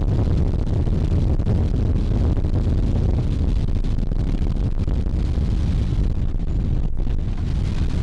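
Strong sea wind buffeting the microphone in a steady low rumble, with a boat's engine running beneath it.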